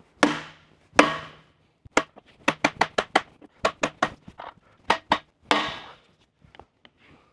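A series of sharp knocks and taps of tools on metal axle parts while a differential carrier is being fitted, at an uneven pace, some ringing briefly.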